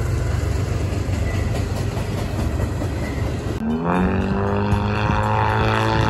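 Freight train passing with a steady noise of wheels and engines. About three and a half seconds in, a diesel locomotive's multi-note air horn sounds a chord that rises briefly as it comes on, holds for about two seconds, and cuts off abruptly.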